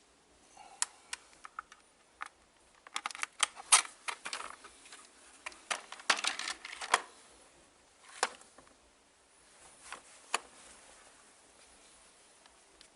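Irregular sharp clicks and short clattering rattles, with a busy cluster in the middle and a couple of single clicks later on; no motor is running.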